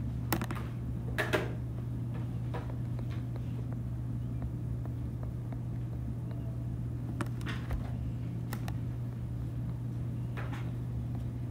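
A steady low hum with a few short, soft taps and clicks scattered through it, the loudest a pair about a second in.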